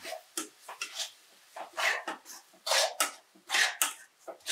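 Steel spatula scraping and stirring thick onion-tomato masala in an aluminium kadai, a short scrape with each irregular stroke, about two a second.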